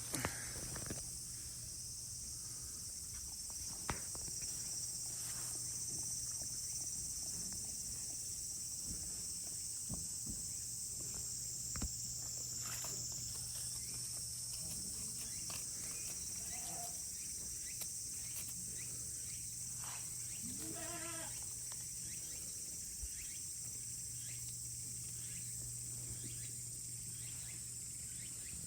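Goat bleating once, a rising call about two-thirds of the way through, over a steady high drone of insects and a low steady hum, with scattered small clicks and knocks.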